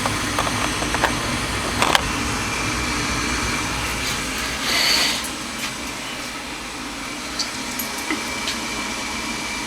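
2003 Lennox Signature Collection 80% gas furnace running, with its lit gas burner and blower making a steady mechanical rush. There is a short hiss about five seconds in, after which the sound eases slightly.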